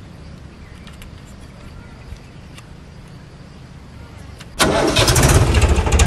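A low steady rumble, then a diesel tractor engine starts suddenly about four and a half seconds in and runs loudly with a fast, even knocking clatter.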